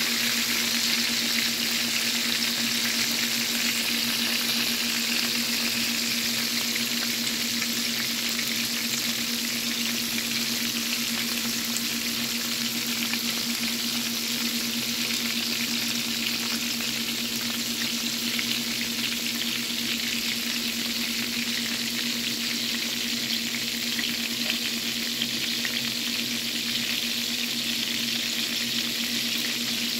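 Breaded pork chops shallow-frying in hot oil in a skillet: a steady sizzle with fine crackling.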